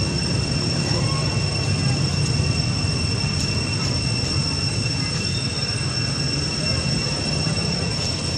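A steady, high-pitched insect drone, two unbroken whining tones, over a low background rumble.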